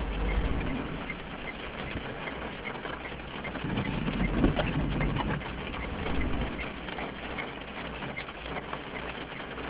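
Light rain beginning: raindrops tapping irregularly on a car's windshield and roof, heard from inside the car over a low steady rumble.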